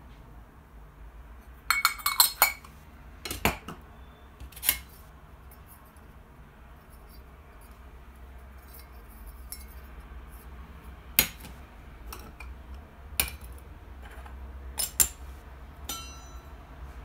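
Metal and porcelain pieces of a Turkish coffee set clinking and knocking as they are handled and set down on a metal tray: a quick cluster of clinks about two seconds in, then single knocks every few seconds, the last one ringing briefly.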